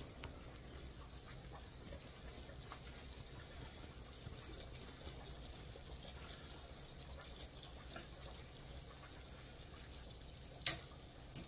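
A metal fork scraping and clinking lightly in a skillet of cooking chicken pieces, over a faint steady hiss of cooking. Near the end come two sharp clinks of metal on metal, the first much louder, under a second apart.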